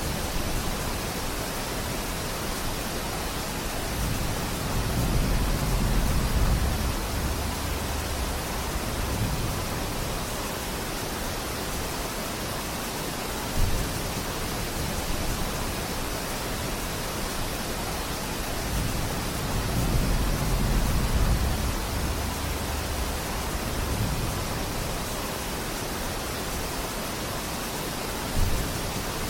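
Steady rain falling on a forest, an even hiss, with two long low rumbles swelling and fading and a couple of short low thumps.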